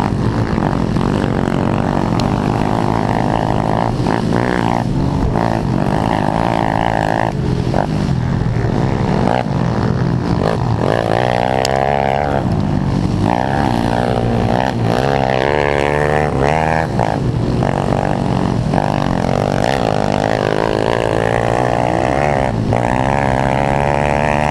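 Pit bike's single-cylinder engine racing on a dirt motocross track, heard from a camera mounted on the bike: it revs up and down over and over through throttle changes and gear shifts, with brief dips as the throttle is closed.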